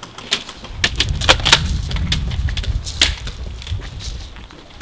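Airsoft guns firing an irregular series of sharp snapping shots and BB hits, with a low rumble from about a second in until about three and a half seconds in.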